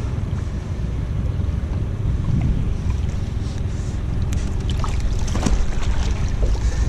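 Wind rumbling on the microphone, with a few short sharp knocks from about four seconds in.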